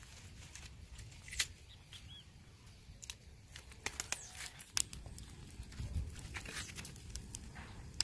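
Green palm leaves being torn and stripped by hand with a knife: a series of short crisp rips and crackles with leaf rustling.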